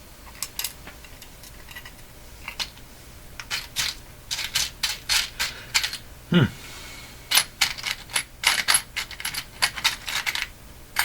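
Small metal washers and hardware clicking and clinking against each other as they are picked through in a parts container, in quick irregular clusters that start about three seconds in. A short falling tone cuts in near the middle.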